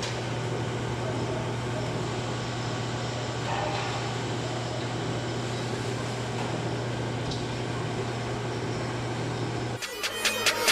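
Lathe's electric motor humming steadily with a low drone. Just before the end the hum drops away and a louder, rapid, evenly repeating clatter starts.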